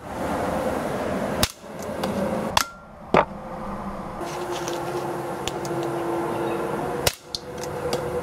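About four sharp cracks from a CO2 air pistol firing .177 pellets at a glass beer bottle, the loudest about three seconds in, over a steady background hiss.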